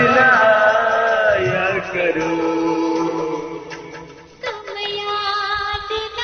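Hindi film-style song: a male singer holds long, wavering notes over instrumental accompaniment, fading down about four seconds in before a new held phrase begins.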